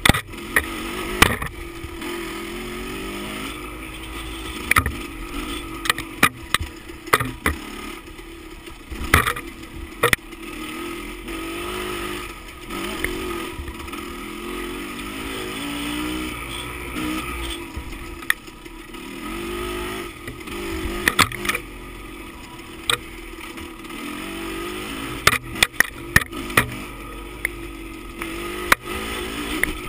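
Dirt bike engine running under way on a rough trail, its pitch wavering up and down with the throttle, with frequent sharp knocks and rattles from the bike over the bumps.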